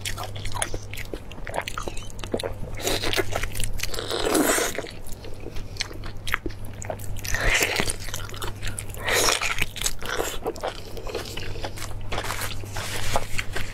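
Close-miked eating: biting into and chewing a large sauce-covered braised meat joint, with many small mouth clicks and louder bites about 4, 7.5 and 9 seconds in. A steady low hum runs underneath.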